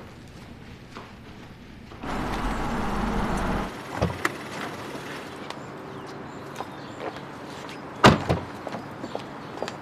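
A car passes briefly with a rushing, rumbling noise. A knock follows, and a sharp loud thud near the end, like a car door shutting.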